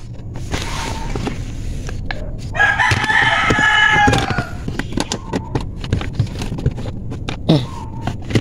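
A rooster crowing once, about three seconds in: a call of about a second and a half that drops in pitch at the end. Around it, light clicks and knocks of the diagnostic scanner cable being handled.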